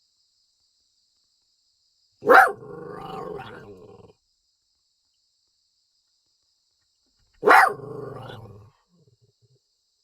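A dog barks twice, about five seconds apart. Each loud, sharp bark trails off into a longer, quieter drawn-out sound lasting over a second.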